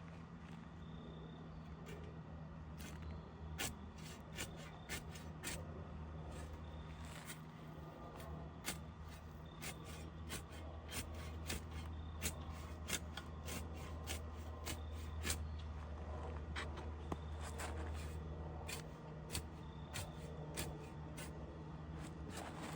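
Carrot fern tops being cut up by hand: a run of irregular sharp snips, one or two a second, over a steady low hum.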